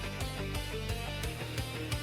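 Background rock music driven by guitar, with a steady drum beat.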